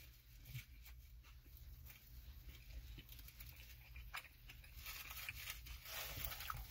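Faint chewing of a cevapi sandwich in soft lepinja bread: soft mouth sounds and scattered small clicks over a low steady hum.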